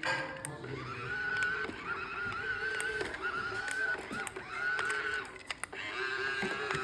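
Small electric motors of a LankyBot remote-control toy robot running as it moves, a whine that wavers in pitch, with light clicks and knocks from the toy. The whine stops briefly a second before the end, then starts again.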